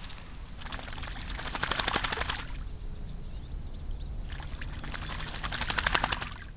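A duck bathing, splashing and beating its wings rapidly against the water in two bouts with a short pause between, the second bout louder.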